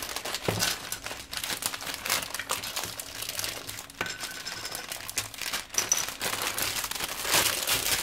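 Clear plastic packaging crinkling and rustling as it is handled and emptied, with small clicks and taps as plastic parts are set down on a cutting mat.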